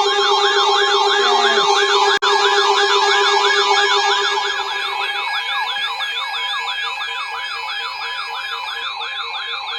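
Electronic siren yelping, rising and falling rapidly about three times a second, layered over a steady tone that turns to a pulsing beep about halfway through.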